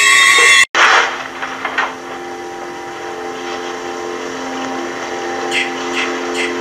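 Film soundtrack: a woman's loud, drawn-out scream cuts off abruptly less than a second in. Then a steady, sustained low chord of horror-film score plays with a faint hiss.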